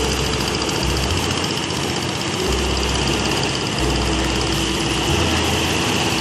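An engine running steadily at an even speed, with a constant drone.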